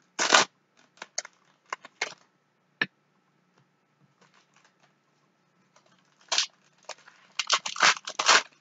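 Foil trading-card pack wrappers being torn open and crinkled: a quick rip just after the start, a few light crackles, then a run of tearing and crinkling in the last two seconds.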